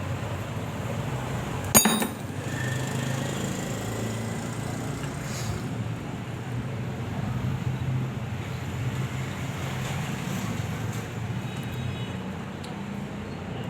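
A single sharp metallic clink about two seconds in, over a steady low hum, with a few faint ticks later on.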